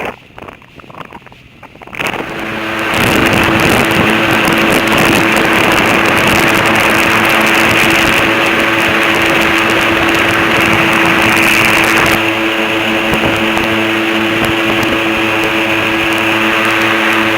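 Airboat engine and propeller running steadily at high power. It comes in sharply about two seconds in, after wind buffeting the microphone, and its high hiss drops away about twelve seconds in.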